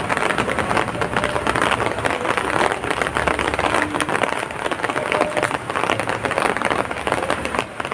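Heavy rain falling steadily, a dense crackling patter of countless drops hitting the ground.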